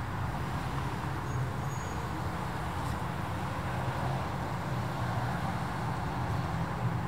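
Steady low hum of motor vehicle traffic on a city street.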